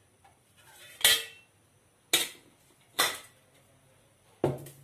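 Steel and aluminium kitchenware (an oil container's lid and pots) knocked and set down on a gas stove: four sharp metallic clanks, each ringing briefly, spread about a second apart.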